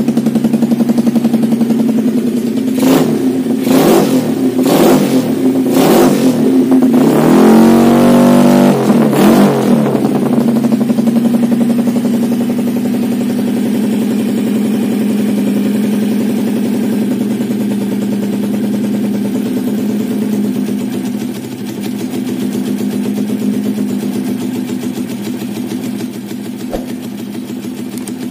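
Motorcycle's Yamaha 130cc single-cylinder four-stroke engine running through an aftermarket slip-on exhaust. It is blipped several times in quick succession, the last rev held a little longer, then it drops back to a steady idle.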